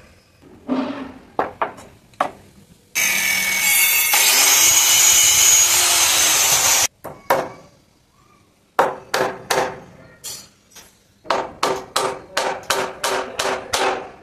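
Claw hammer driving nails through a wooden batten into plywood: a few knocks, then a power tool runs loudly for about four seconds and stops abruptly, then a steady run of hammer strikes, about three a second with a short pause partway.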